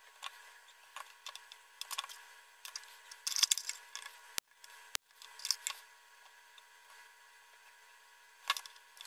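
Small irregular clicks, taps and scrapes of metal tweezers and a soldering iron tip working wires onto a drone flight-controller board, with a busier stretch in the middle, a short drop-out of the sound about halfway, and one sharper click near the end.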